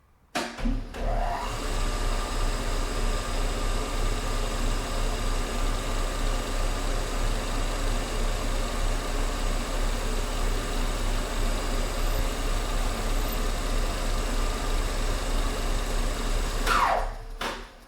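Small machine tool's electric motor starting up, running steadily with a hum and whine, then spinning down near the end.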